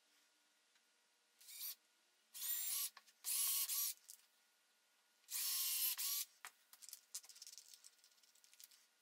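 Cordless drill/driver running in four short bursts, its motor pitch bending under load as it bores into a softwood board, the first burst lighter than the rest. After the last burst comes a run of rapid clicking as the keyless chuck is turned by hand to change the bit.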